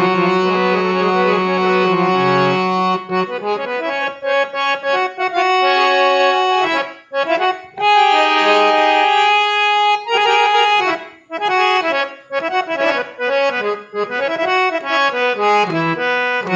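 Harmonium playing a Krishna bhajan tune, a melody over held chords, with a low held note under it for the first few seconds. The playing briefly breaks off about seven and eleven seconds in.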